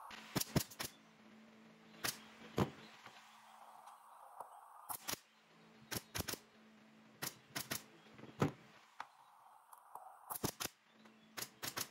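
Pneumatic nail gun firing nails into a wooden chair frame: many sharp shots, often two or three in quick succession, about twenty in all.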